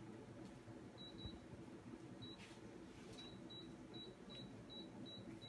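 Touch controls of a glass-top electric hob beeping as it is switched on: a few single short high beeps, then from about three seconds in a steady run of beeps, a little over two a second.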